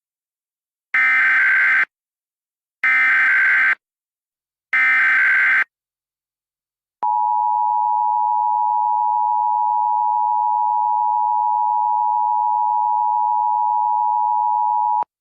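Emergency Alert System tones: three short bursts of SAME header data, each about a second long and a second apart, then about seven seconds in the two-tone EAS attention signal, a steady dual tone held for about eight seconds that cuts off sharply.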